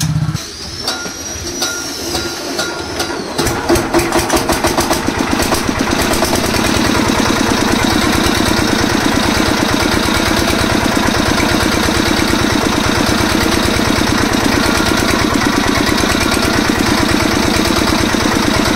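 Brand-new Hindustan 8 hp air-cooled diesel engine starting: it fires about three and a half seconds in, with uneven pulsing beats at first, then settles into steady, even running.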